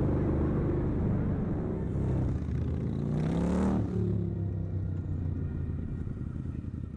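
Harley-Davidson V-twin cruiser motorcycles riding past on a city street, their exhausts rumbling. About three seconds in, one revs up with a rising pitch, then the engines settle back into a steady rumble as the group rides by.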